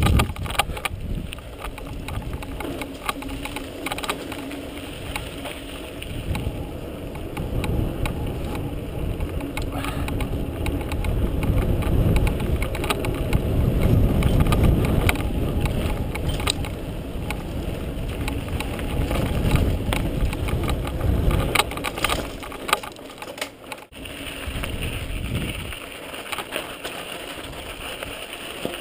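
Mountain bike descending a dirt trail, heard from a GoPro: wind buffeting the microphone, tyres rolling over dirt, and frequent rattles and clicks from the bike over the bumps. The low wind rumble drops away about three-quarters of the way through.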